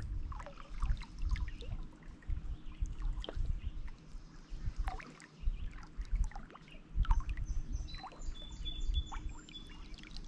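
Small lake waves lapping and splashing irregularly against shoreline rocks. A songbird gives a few high, thin notes near the end.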